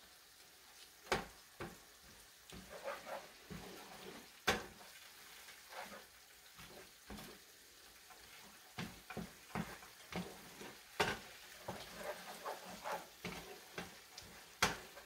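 Wooden spatula stirring and scraping chopped vegetables in a skillet, with irregular sharp taps against the pan over a faint sizzle as they cook down and soften.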